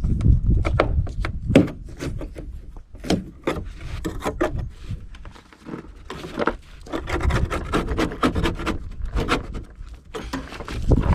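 Hand work on the RV's wooden floor and panels: irregular scraping and rubbing with scattered knocks and clicks, as glued-down carpet is pried and scraped up.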